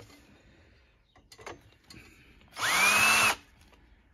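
Power drill driving a screw into a stool leg through its metal base ring: one short burst of about a second, the motor's whine rising as it spins up, then stopping.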